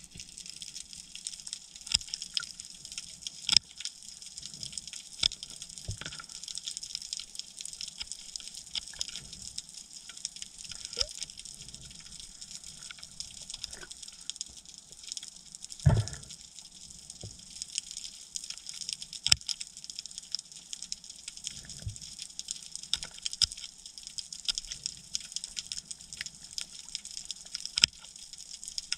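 Underwater ambience picked up through a camera housing: a steady high hiss with scattered sharp clicks and crackles, and one louder low knock about sixteen seconds in.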